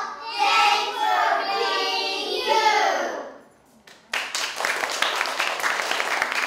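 Young children singing the end of a song together, their voices stopping a little after three seconds. After a short pause, an audience breaks into applause about four seconds in.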